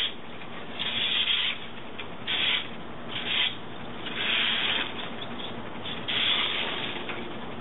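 Hand saw cutting through palm frond stalks: irregular rasping strokes, roughly one a second, some short and some drawn out.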